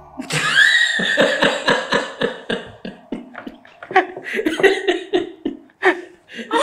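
A group of people laughing hard together: a long run of rapid, breathy bursts of laughter, opening with a high-pitched cry.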